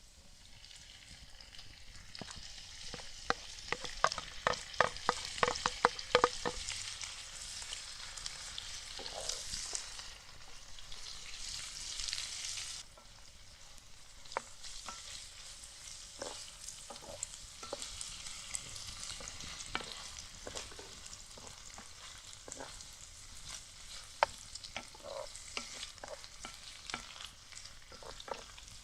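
Food frying and sizzling in a pan while it is stirred. The utensil taps against the pan in a quick run of about three taps a second a few seconds in, then now and then. The sizzle drops sharply about halfway through and carries on more quietly.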